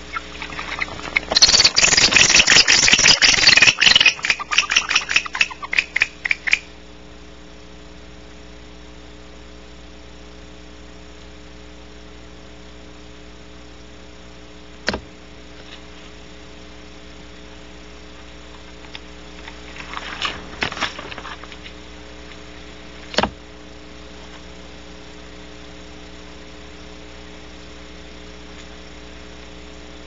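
Barn owl at the camera: a loud, harsh rasping burst starting about a second in that breaks into a run of separate strokes and stops after about five seconds. Later come a sharp click, a shorter, fainter rasp and another click.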